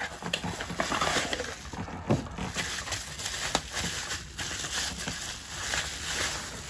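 Cardboard box and plastic bubble wrap being handled: irregular rustling and crinkling as a packed floodlight is pulled out and unwrapped, with a few light knocks.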